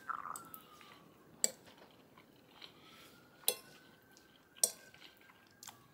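A metal fork clinking against a ceramic plate while someone eats, four short sharp clicks spaced about a second apart, with quiet chewing between them.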